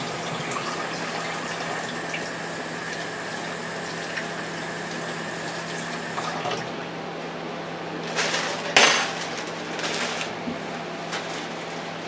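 Kitchen tap running while hands are washed under it, the water splashing steadily for about six seconds. About eight seconds in comes a short, louder rustling noise with a sharp click.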